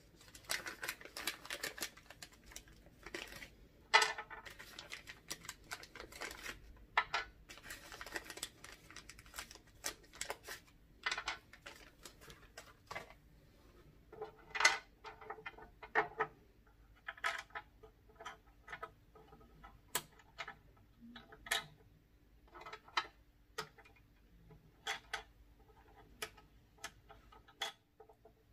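Handling noise from assembling a Giffin Grip: rustling of the paper instruction sheet at first, then irregular sharp clicks and taps as small screws, nuts and a metal bracket are handled and set against the tool's plastic plate.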